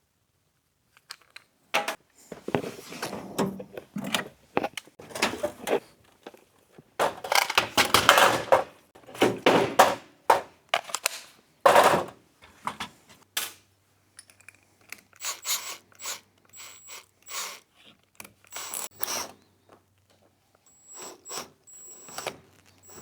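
Hand and power tool work on a 3D-printed plastic part: short, irregular bursts of noise with clicks as the hole is drilled out and a bolt is worked into the plastic, cutting its own thread. The loudest bursts come in the first half, with a faint steady hum in the second half.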